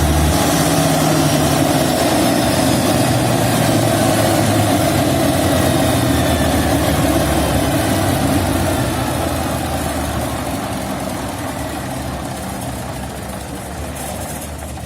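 790 kVA Perkins diesel generator set running with a steady, heavy engine sound. Its deep low note drops away just after the start, and the sound grows gradually quieter over the second half.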